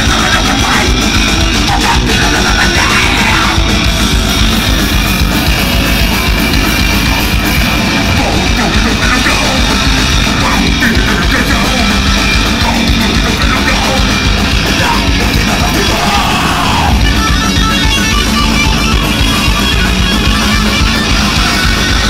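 Rock band playing live and loud: distorted electric guitar, bass guitar and drums, with a singer's vocals over the band.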